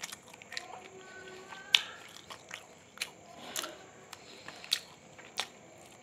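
Close-up eating sounds of chicken with raw cucumber and cabbage: chewing with sharp, irregular crunches every half second or so. The loudest crunch comes nearly two seconds in.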